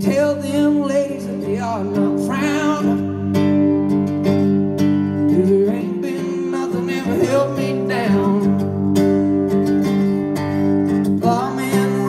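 Live solo acoustic guitar strummed in a steady rhythm, with a man's voice singing over it in places.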